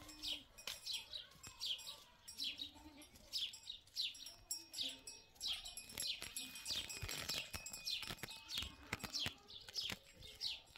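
Small birds chirping over and over, a steady run of short falling notes about two a second.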